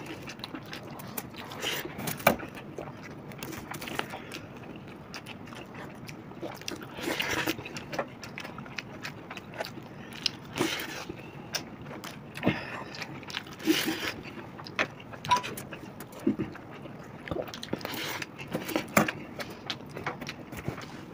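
Close-miked eating: two people chewing and biting into chicken biryani, heard as irregular short clicks and wet mouth noises.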